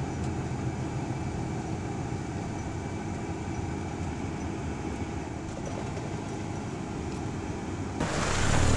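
Steady road noise inside a moving car: engine and tyre rumble with a constant hiss. About eight seconds in it cuts abruptly to a louder, brighter sound.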